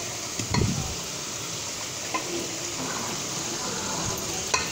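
Minced meat and tomato masala sizzling steadily in a steel pot as cubed potatoes are added, with a soft thump about half a second in and a couple of light clicks later.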